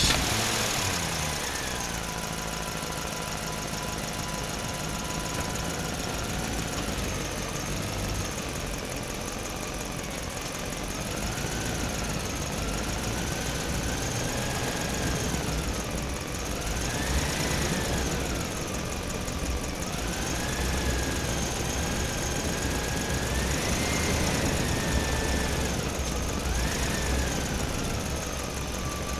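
Small electric motor and gearbox of a homemade RC toy truck running, its whine rising and falling again and again as the truck speeds up and slows down, over a low rumble.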